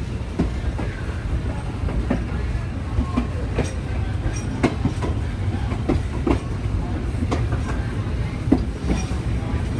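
Passenger train rolling along, heard from its open end platform: a steady low rumble of wheels on rail with irregular metallic clanks and clicks.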